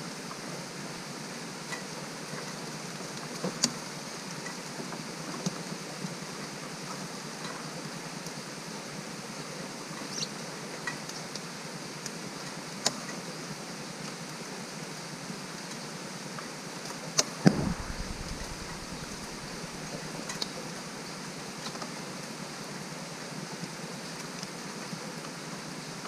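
Steady rain hiss with scattered sharp taps every few seconds, and one louder thump about two-thirds of the way through.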